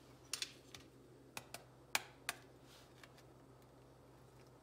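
Metal spoon tapping a raw egg's shell to crack it: a series of light, sharp taps at uneven intervals in the first two and a half seconds.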